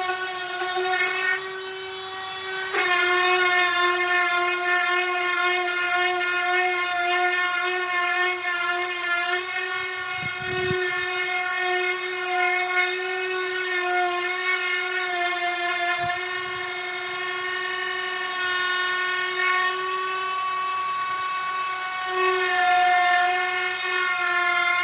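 Electric power sander running on a wooden table top: a steady, high-pitched motor whine that wavers slightly in pitch, with a small jump in pitch about three seconds in.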